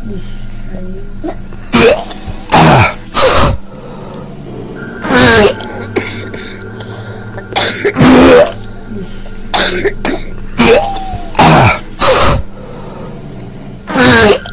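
A person coughing and clearing the throat in harsh bursts, about a dozen, some ending in a falling voiced tail. A steady low hum and a faint high tone run underneath.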